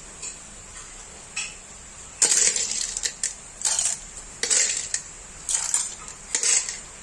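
Metal ladle scraping and clinking against a metal wok-style pan as a curry of snails in their shells is stirred. It comes in short bursts about once a second, starting about two seconds in.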